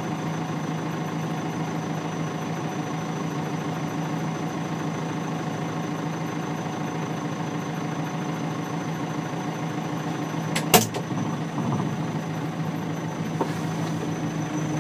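Fermec 860 backhoe loader's diesel engine idling steadily, heard from inside the cab, with a thin high steady turbo whine over the engine note. A single sharp knock comes about eleven seconds in.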